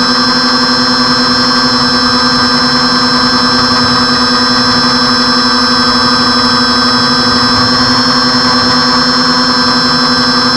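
The RC airplane's twin motors and propellers running steadily at a constant throttle, heard from the camera mounted on the plane, a steady hum with a high whine over it.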